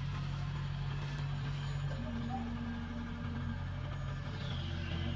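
Kubota rice combine harvester's diesel engine running steadily, a low, even engine drone.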